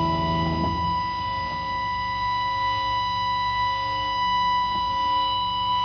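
Amplified electric guitar left ringing into feedback: a steady high whine over lower sustained tones, with no new notes played.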